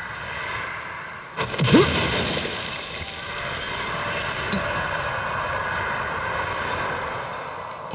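Film sound effect of force used against a stone wall: a heavy impact about one and a half seconds in, over a long, steady rumble.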